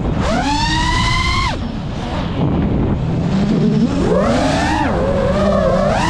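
FPV quadcopter's brushless motors whining, the pitch climbing as the throttle is punched and dropping sharply when it is chopped, three times. Underneath is a steady low rumble of wind on the microphone.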